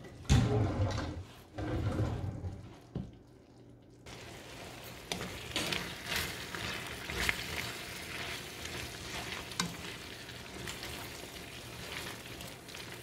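A few low knocks, then, from about four seconds in, red sauce sizzling in a stainless steel skillet as bowtie pasta is stirred through it with a white slotted spatula, which scrapes and taps against the pan.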